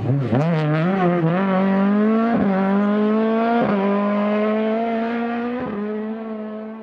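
Rally car engine at full throttle accelerating away up the lane, its note climbing and dropping sharply at three upshifts, then fading as it goes into the distance.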